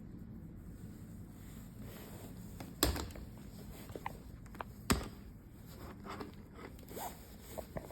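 Handling clicks and light taps, two louder sharp clicks about two seconds apart, over a low steady hum.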